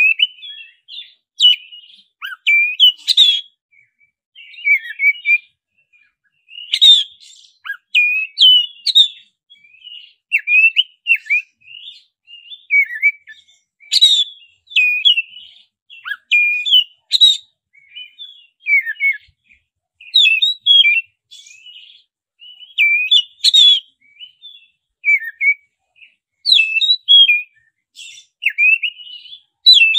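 Black-breasted Oriental magpie-robin (kacer dada hitam) singing a loud, varied whistled song. Its short phrases of sliding, sharp notes come one after another with brief pauses, the rolling, rapid song used as a lure to set other magpie-robins singing.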